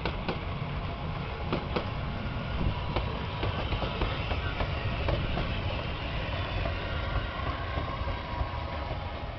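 Harz narrow-gauge steam tank locomotive 99 7239-9, a 2-10-2T, rolling slowly past with a water tank wagon: a steady low rumble with scattered clanks and clicks of wheels on the rails, most of them in the first few seconds.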